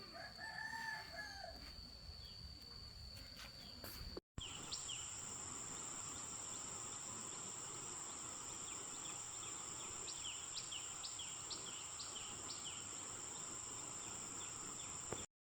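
A rooster crows once near the start. After a cut, a steady high insect drone runs on, with a quick series of short bird chirps about three quarters of the way through.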